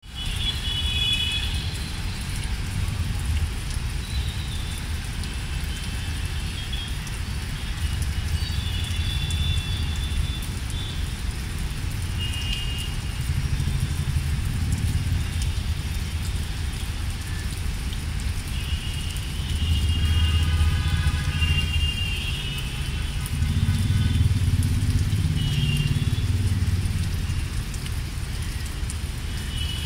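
Outdoor city-park ambience: a steady low rumble that swells twice in the second half, with birds chirping in the trees now and then.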